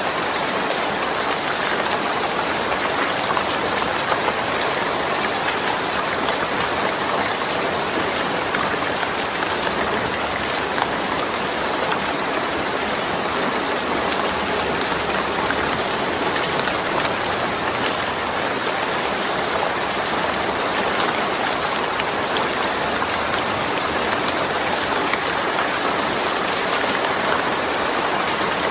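Steady rain falling on a corrugated zinc roof: a continuous dense patter with scattered sharper drop ticks.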